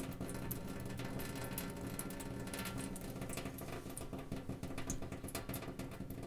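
Faint, irregular light clicks and taps, several a second, over a low steady hum.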